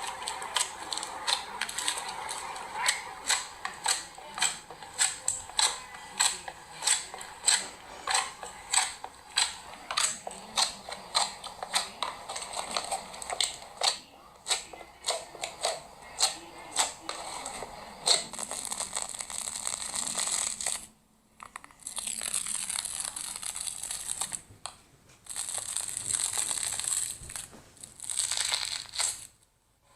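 Slime being squeezed and poked by hand, with sharp popping clicks about two a second as pockets of air burst. After a short cut, a steadier crackling, crinkling sound takes over as the slime is pressed and stretched.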